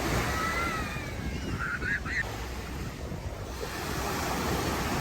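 Sea surf washing on the shore with wind buffeting the microphone; a few faint high, gliding calls sound in the first couple of seconds.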